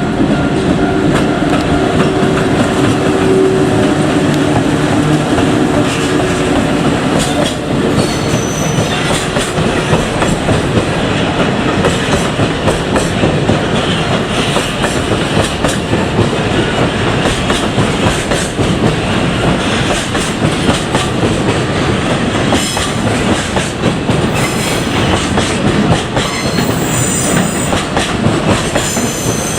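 Long freight train of container wagons hauled by an EF81 electric locomotive rolling past close by, with continuous wheel clatter over the rail joints. A steady hum fades out over the first few seconds, and thin high wheel squeals come and go in the last third.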